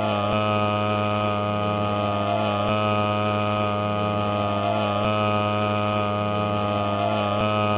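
A loud, steady electronic hum or drone with many overtones, its pattern repeating about every two and a half seconds like a loop.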